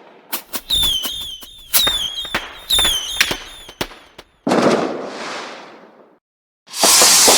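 Fireworks going off: a rapid string of sharp cracks mixed with several short, wavering whistles, then a loud burst that fades into a hissing tail. After a brief gap, another loud burst comes near the end.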